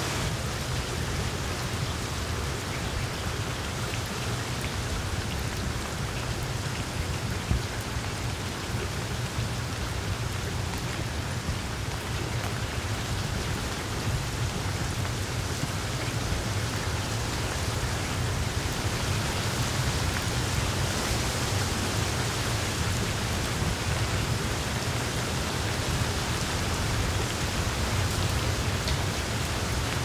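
Steady rain falling, an even hiss with a low rumble underneath that holds without a break.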